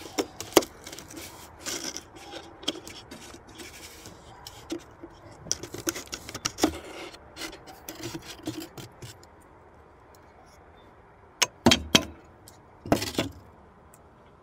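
Wooden entrance reducer being scraped and pried out of a beehive entrance: a run of clicks, wood scraping and rubbing, then a few louder knocks near the end.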